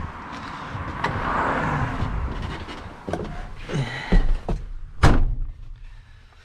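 Someone climbing up into the cab of an International box truck, with knocks and thuds, then the cab door slamming shut about five seconds in, the loudest sound.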